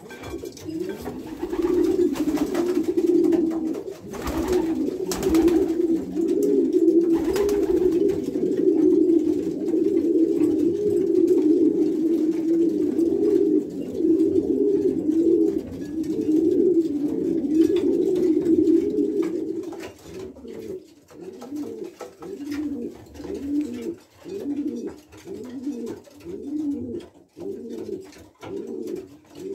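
Newly paired racing pigeons courtship-cooing: a dense, overlapping chorus of many birds that thins about two-thirds of the way through to one bird's repeated coos, about one a second.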